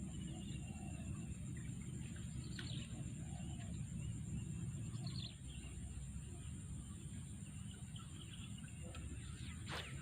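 Scattered short bird chirps over a steady low background rumble, with one sharp click near the end.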